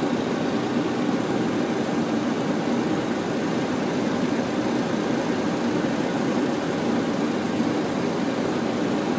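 Steady flight-deck noise of a Boeing 737-800 on short final approach: an even rush of airflow and engine noise that holds unchanged.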